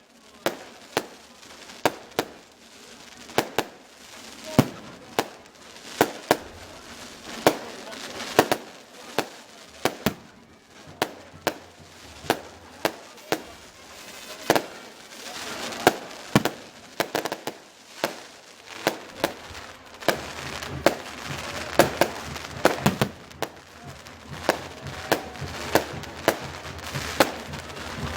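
Fireworks going off: a string of sharp bangs, one to several a second, with crackling between them, thickening towards the end.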